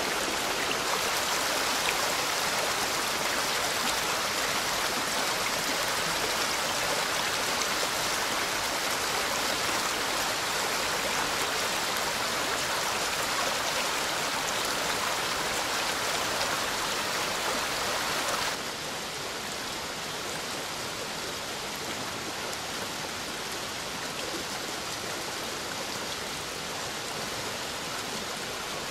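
Rushing water of a torrent, a steady rush that steps down suddenly to a quieter, duller level about two-thirds of the way through.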